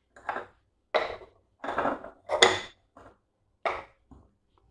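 Ceramic lids being set one after another onto glazed clay baking pots. Each gives a short clack of ceramic on ceramic, about seven clatters in all.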